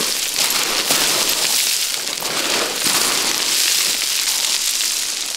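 Boots sliding and skidding down a steep slope of loose scree: a continuous crunching and rattling of gravel under the feet.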